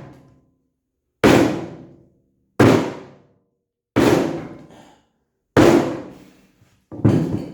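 Five heavy sledgehammer blows, about one every second and a half, struck through a wood block onto the bent frame of a Jeep soft-top door to straighten it. Each hit is a sharp, loud thud that dies away quickly.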